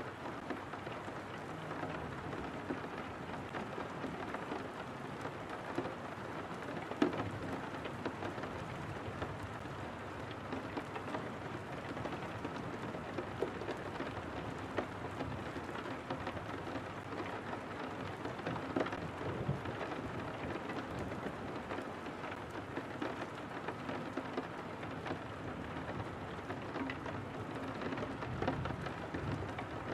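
Steady rain pattering on a window pane, a constant hiss with many small, sharp drop ticks scattered through it.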